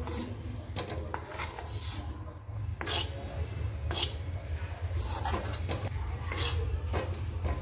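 Steel spoon scraping and knocking against a dark iron pan while stirring roasting flour, in irregular strokes about every second. Under it runs a steady low hum.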